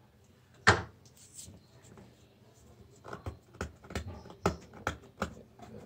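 Newspaper sheets crackling and rustling as they are handled and pressed flat against a wall, with one sharper crackle just under a second in, then a run of short, irregular crackles and taps.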